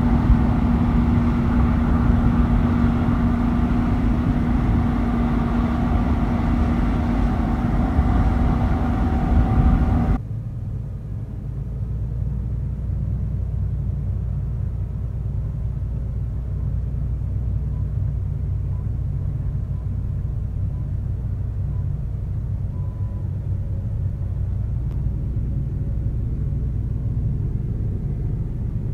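Case IH Axial-Flow 8250 combine harvester running, a loud steady machinery din with a held hum and whine over it. About ten seconds in, the sound changes abruptly to a deeper, muffled low rumble.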